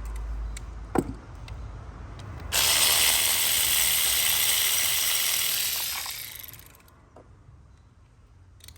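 Ratchet wrench working a socket to loosen a spark plug: a single click, then a few seconds of rapid pawl clicking that fades out as the plug comes free.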